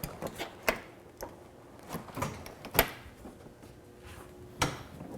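Latches clicking and lids knocking as the seat and front trunk of a Can-Am Spyder RT Limited are opened: a string of sharp clicks and knocks, the loudest about three seconds in.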